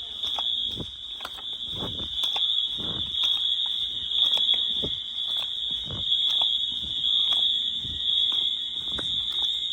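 Several Wheelock MT electronic fire alarm horns sounding together, each on a different coding pattern, in a chaotic mix. A continuous high horn tone runs under irregular, overlapping pulses and clicks.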